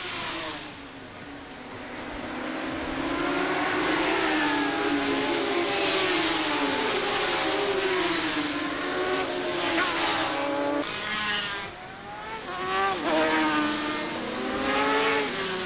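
Racing motorcycles going by at speed, several engines at once, their pitch rising and falling as they pass.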